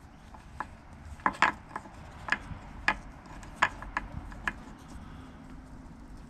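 Sharp clicks and taps of pliers and a plastic starter-cord handle against a wooden board as the broken pull cord is worked out of the handle: about a dozen irregular clicks, dying away about four and a half seconds in.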